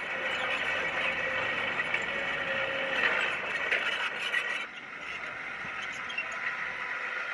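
Diesel engine of heavy earthmoving machinery running steadily, with a few sharp clanks about three to four seconds in; it drops quieter just before five seconds.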